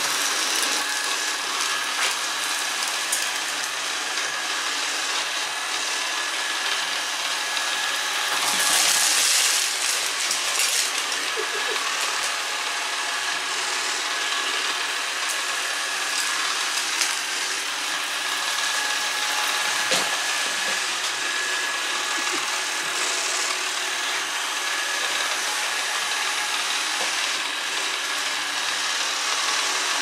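Kitfort KT-533 robot vacuum running: steady whir of its suction fan and spinning side brushes with a faint high whine, louder for a moment about nine seconds in. A few sharp clicks and rattles, the strongest about twenty seconds in, come as it sweeps rice grains and dried peas that its side brushes flick across the table.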